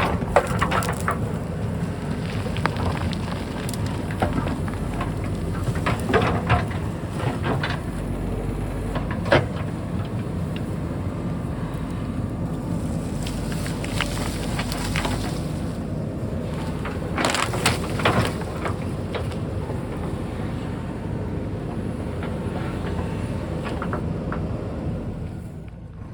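JCB backhoe's diesel engine running steadily while it digs, with scattered knocks and bursts of crunching from soil and stones.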